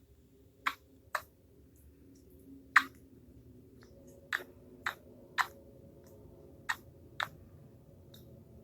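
A run of hiccups: about eight short, sharp hiccup sounds at uneven intervals, some less than half a second apart and others a second or more.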